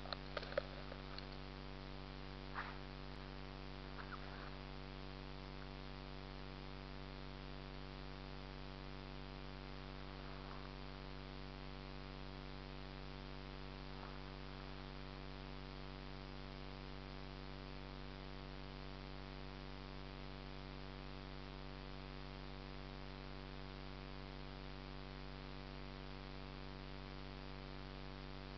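Steady electronic hum and hiss from the camera's own recording circuitry. A few handling clicks and knocks fall in the first few seconds as the camera is set down in the grass.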